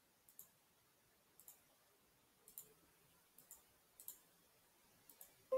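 Faint computer mouse clicks, six quick double clicks roughly one a second. Right at the end a notification chime of several steady tones starts.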